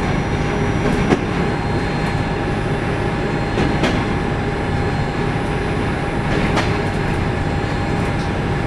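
Train running steadily along the track, heard from on board: a dense rumble with a steady whine and three sharp clicks about every three seconds, typical of wheels passing over rail joints.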